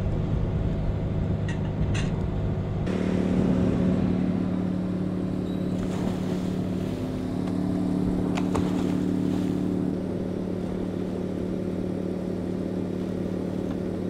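Boat engine running at a steady speed, with a few faint knocks and clicks of dive gear.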